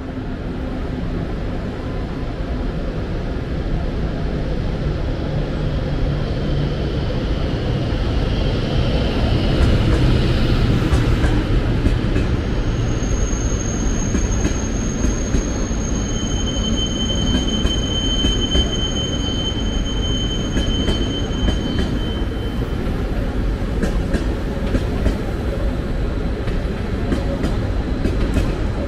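A passenger train of SBB coaches rolling slowly along the platform: a steady rumble of wheels on rail that grows louder over the first ten seconds, with a run of clicks as the wheels pass over rail joints and points. About halfway through, a high steady wheel squeal rings for several seconds in two pitches, then stops.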